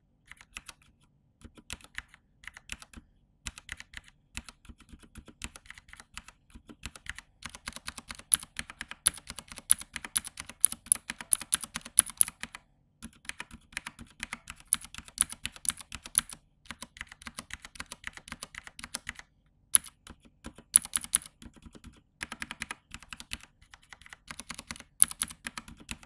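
Typing on a Vortex VX87 mechanical keyboard with its keycaps on: fast runs of clacking keystrokes in bursts, broken by short pauses.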